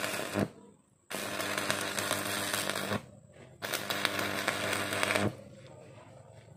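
Electric arc welding in short runs: three stretches of buzzing, crackling arc, each a second or two long with brief stops between, then it stops for good about five seconds in.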